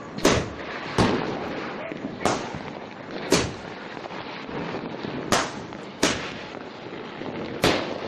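Fireworks going off: about seven sharp bangs at uneven intervals, some less than a second apart and others two seconds apart, over a constant noisy background.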